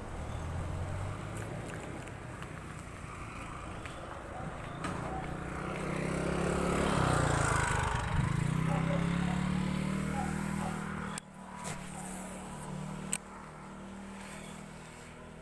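A motor vehicle passing on the road: its engine grows louder to a peak about seven to eight seconds in, the pitch falling as it goes by. The sound drops off abruptly about eleven seconds in, and there is a sharp click about two seconds later.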